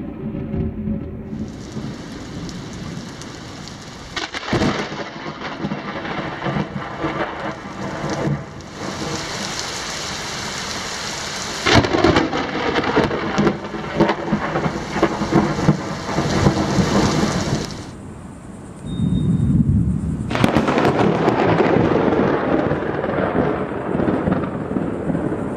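Thunderstorm with heavy rain hissing steadily. Close lightning strikes crack sharply three times and roll into loud rumbling thunder.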